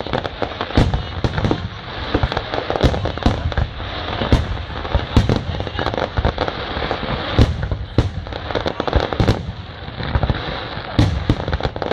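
Fireworks display going off: many sharp bangs in quick, irregular succession over continuous crackling.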